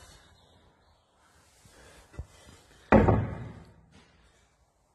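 Rusty metal fuel filler cap of a Stuart M3A1 tank handled against its armour plate: a faint knock about two seconds in, then one loud metal clunk about three seconds in that dies away over about a second.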